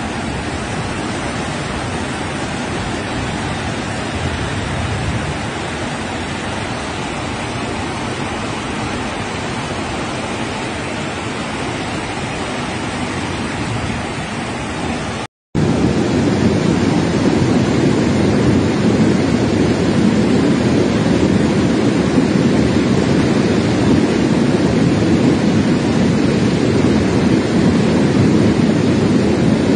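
Floodwater rushing through a street in a steady, noisy rush. After a brief break about halfway, a louder, deeper rush of muddy water runs down a narrow street.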